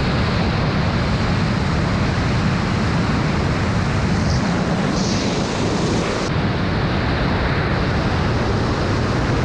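Steady, loud rush of wind buffeting the microphone during a wingsuit flight.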